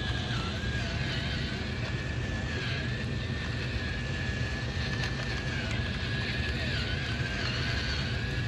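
Electric spice grinder's motor whirring steadily as it grinds seasoning, a slightly wavering high whine over a low hum.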